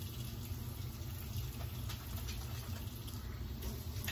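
Kitchen faucet running steadily into a stainless steel sink while an item is rinsed and wrung out by hand under the stream.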